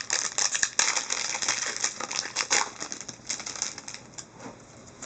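Foil card-pack wrapper crinkling and trading cards being handled: a hockey card pack torn open and its cards slid out. A quick run of crackles and clicks that thins out over the last couple of seconds.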